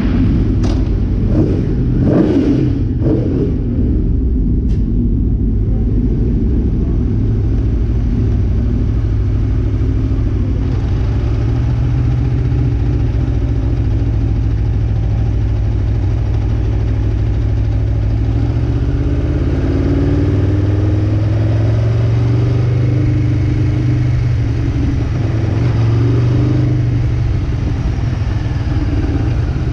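Aprilia RSV4 1100 Factory's V4 engine running at low revs with a steady low rumble, idling in neutral and then rolling slowly in first gear with small throttle changes that make the pitch waver. A few short sharp sounds come in the first few seconds.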